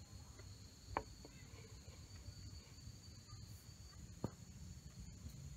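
Two light knocks about three seconds apart as a wooden bowl is set down on a wooden trivet on a wooden table. A faint steady high insect chirring runs beneath.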